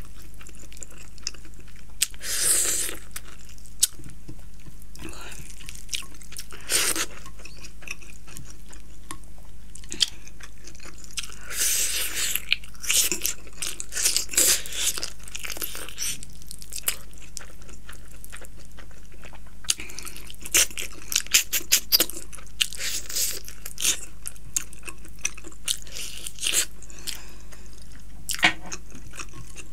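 Close-miked eating by hand: chewing mouthfuls of rice and curried chicken, with wet mouth clicks and smacks and bursts of crunchy, squishy food noise, over a steady low hum.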